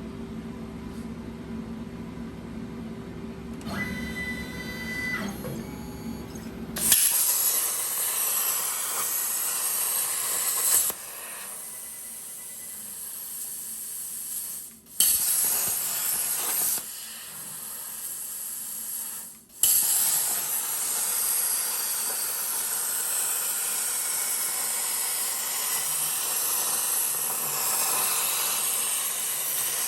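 CNC plasma cutter torch cutting steel plate: a loud, steady hiss of the plasma arc and air. The hiss starts suddenly about seven seconds in, after a low machine hum with a few short beeps, and it breaks off and starts again a couple of times.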